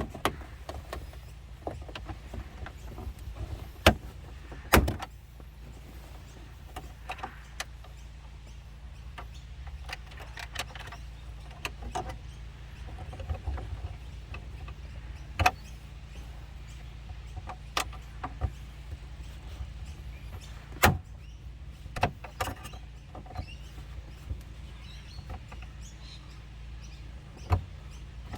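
Scattered sharp clicks and knocks of plastic interior trim and tools being worked loose inside a car, about a dozen at irregular intervals, over a steady low hum.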